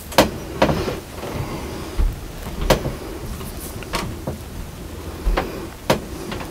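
Sharp taps and clicks a second or so apart, with a few dull low bumps, as a brush dabs and strokes white slip onto a paper resist on a potter's wheel bat.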